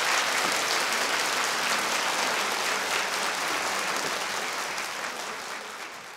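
A large concert-hall audience applauding, fading out gradually over the last few seconds.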